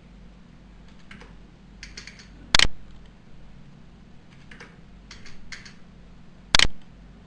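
Typing and clicking on a computer keyboard: scattered light key taps in small clusters, with two much louder sharp clicks about four seconds apart.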